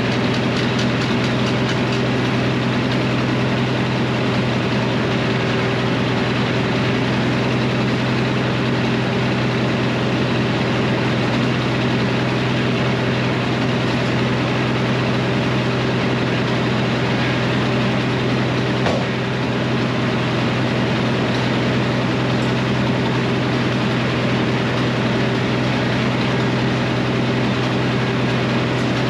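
Frick circular sawmill running with a steady engine drone and a constant hum, unchanging throughout, with one faint click about two-thirds of the way through.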